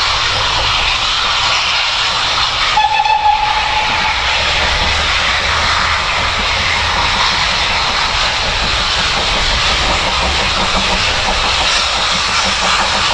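A distant steam locomotive working towards the lineside sounds one short whistle blast about three seconds in, a single steady note lasting about a second, over a steady rushing noise.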